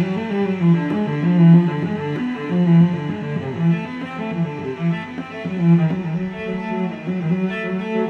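Background music: an instrumental piece with sustained melody notes over a regular low pulse.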